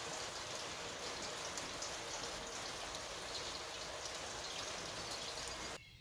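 Steady rain falling and pattering on a red metal-tile roof, cutting off suddenly near the end.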